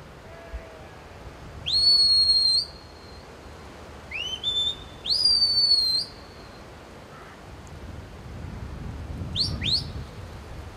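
A shepherd's whistle giving commands to a working sheepdog: a long note that rises and holds, two short rising notes, another long held note that sags slightly, then two quick upward flicks near the end.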